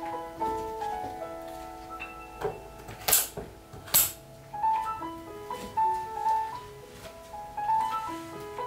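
Gentle solo piano music. A little past three seconds in, two sharp clicks about a second apart stand out above it.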